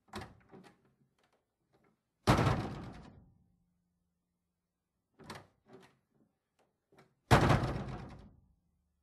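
A house door opened and shut twice: a few light latch and handle clicks, then the door slammed shut, a loud bang that rings away over about a second. The second slam is as loud as the first.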